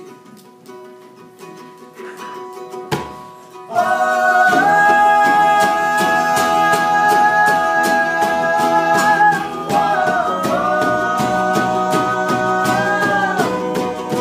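Acoustic live music: a few quiet plucked string notes, then about four seconds in the full group comes in loud, with rhythmic strumming under long held notes that shift pitch twice.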